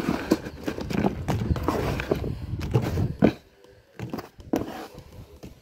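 Hard pieces of chicharon (pork rind) rattling and clattering against a wire mesh strainer as it is shaken, in a dense run for about three seconds, then a few scattered knocks.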